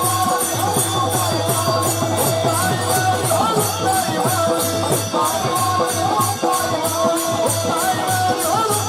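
Devotional kirtan music: mridang drumming with jingling percussion striking about four times a second, over steady held notes and a wavering melody line.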